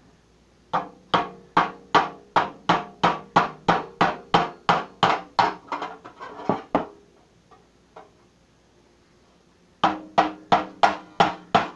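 A knife blade being struck to drive it through a metal cookie tin lid: steady strikes about two and a half a second, each ringing briefly on the tin. The strikes stop for about three seconds, then resume near the end.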